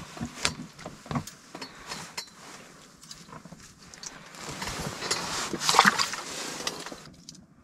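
Close handling noise as a bluegill is unhooked by hand: small clicks and knocks with rustling, and a louder rustle about five to six seconds in.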